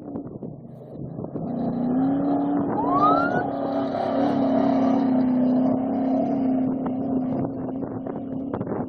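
Off-road vehicle's engine running as it drives by. It swells in about a second in and holds a steady note for several seconds, with a brief rising whine about three seconds in.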